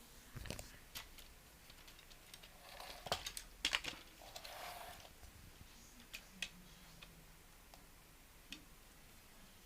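Faint, scattered clicks and rattles of hard plastic from a LEGO Technic model being handled, with a quick cluster of them about three to four seconds in and a few single ticks after.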